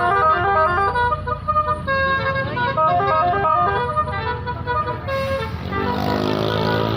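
Bus 'telolet basuri' musical air horn playing a quick melody of short stepped notes over the low running of the bus engine. About five seconds in the tune stops and a hiss with a lower held tone takes over.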